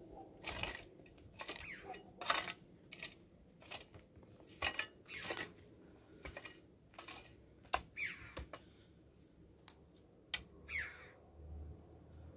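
A hand shovel chopping and scraping into dry, straw-covered soil in irregular strokes, roughly one a second, as the ground is dug over by hand.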